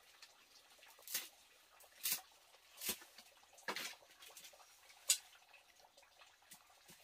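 A baby eating a small snack with its hands: five short, sharp wet clicks and smacks about a second apart, the one near five seconds the loudest.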